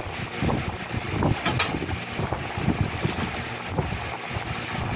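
Rustling and irregular light knocks of parts being handled in a cardboard box as the winch's metal frame-mount plate is lifted out, with a brief sharp crinkle about a second and a half in.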